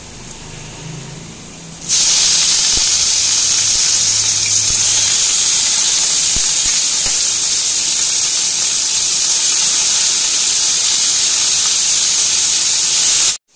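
Diced potatoes, washed and salted beforehand, sizzling loudly in hot oil in a kadai as they go into the pan. The sizzle starts suddenly about two seconds in, holds steady, and cuts off just before the end.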